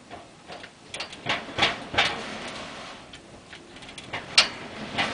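Irregular knocks and rattles of something loose on the outside of the house banging in the hurricane wind, the loudest bang about four and a half seconds in. The householder takes it for siding that the wind has torn loose.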